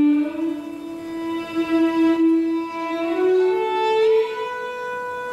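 Solo violin playing slow, long bowed notes: a held note, then a line climbing step by step to a higher note that is held.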